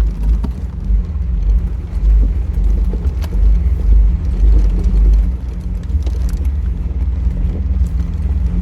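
Jeep TJ driving up a rough dirt fire trail, heard from a dash camera inside the vehicle: a heavy, uneven low engine and drivetrain rumble with scattered clicks and knocks from the bumpy ground.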